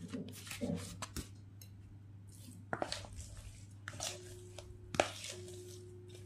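A metal spoon clicking and scraping in a plastic bowl of grated cassava mixture, with handling of a banana leaf: scattered short clicks and scrapes, a few sharper ones about three, four and five seconds in, over a faint low hum.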